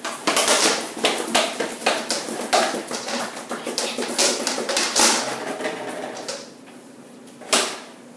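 Empty plastic bottle clattering and crackling on a tile floor as it is pushed about among playing puppies, a rapid run of clicks and crinkles for about six seconds, then one sharp knock near the end.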